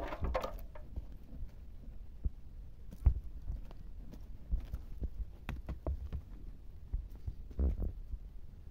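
Footsteps and handling on stony, gravelly ground: irregular low thumps with scattered small clicks and crunches, the sharpest knock about three seconds in.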